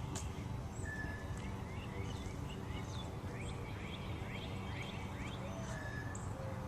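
Small birds chirping in quick series of short rising notes, with a few short whistled notes, over a steady low hum.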